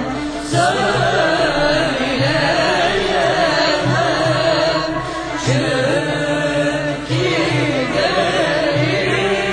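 Background music: a singing voice in long, wavering, ornamented lines over repeated low drum notes.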